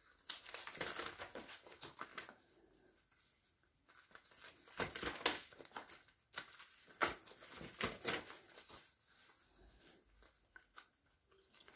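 Stacked sheets of A4 office paper being leafed through and turned by hand, giving short, irregular rustles and crinkles with a pause of over a second about a third of the way in.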